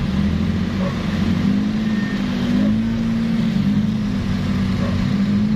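Vehicle engines running in a slow traffic jam, led by a steady low drone from a nearby truck-sized engine, with a slight rise in its pitch about two and a half seconds in.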